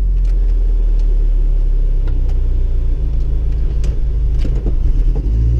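1998 Chevrolet Tracker's four-cylinder engine running steadily under load, heard from inside the cab, with a few sharp knocks and rattles from the body. The driver finds the engine running badly.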